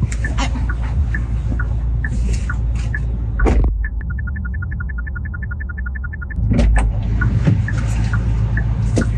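Car cabin with the engine running as a steady low hum, and clicks and rustling as the driver climbs out. A door thuds shut about three and a half seconds in. A rapid, even ticking follows for about two and a half seconds, then the louder hum and clicking return.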